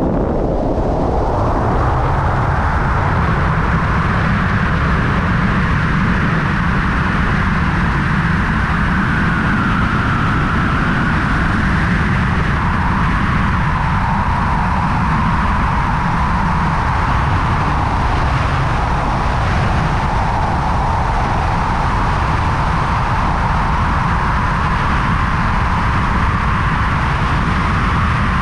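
Loud, steady rush of air over a wingsuit pilot's body-mounted camera in flight. It builds up and rises in pitch over the first couple of seconds, then holds as a constant roar.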